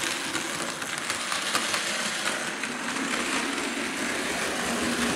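Electric Thomas the Tank Engine model train running on its track: a steady small-motor whir with light, irregular clicking of the wheels on the rails.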